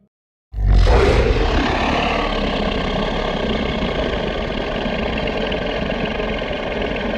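Kaiju sound effect: it bursts in suddenly and loud about half a second in, then holds as a dense, steady rushing noise with a faint thin high tone running through it.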